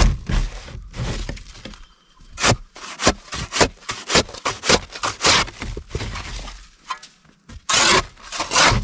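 Shovel with a wooden handle and metal blade scraping and scooping through packed snow in a run of short, irregular strokes, with a longer, louder scrape near the end.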